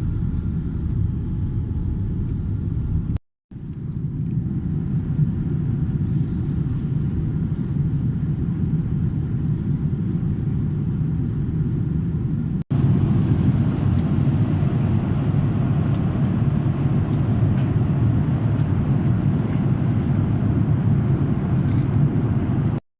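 Steady low rumble of cabin noise inside a Boeing 787-10 airliner, cut into short pieces: it drops out briefly about three seconds in, jumps slightly louder after a cut about halfway through, and drops out again just before the end.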